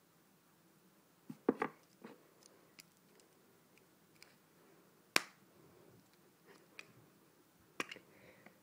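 Small plastic glitter jars being handled and set down on a table: scattered light clicks and knocks, a few close together about a second and a half in, the loudest one about five seconds in, and another pair near the end.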